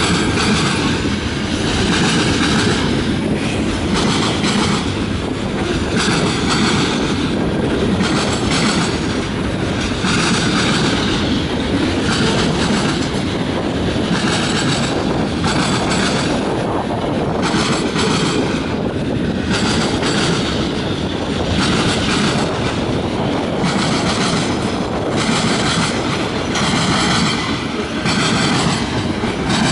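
Freight cars of a mixed manifest train rolling steadily past at trackside. Their steel wheels make a continuous loud rumble on the rails, with repeated clatter as the trucks cross the rail joints.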